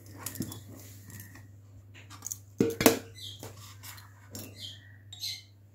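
Metal cookware clinking and knocking as a pot lid is taken off and utensils are handled, with the loudest clatter of knocks about three seconds in and lighter clinks and scrapes after.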